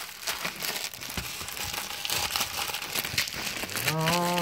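Bubble-wrap packaging crinkling and crackling as it is handled, with a phone case being worked out of its bubble-wrap pouch.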